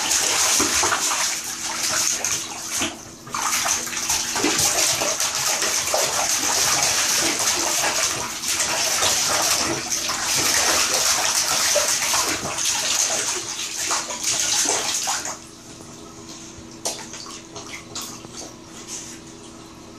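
Water splashing in a bathtub as a Siberian husky puppy paws and thrashes in it, loud and continuous, then dropping off suddenly about three quarters of the way through to lighter splashes and drips.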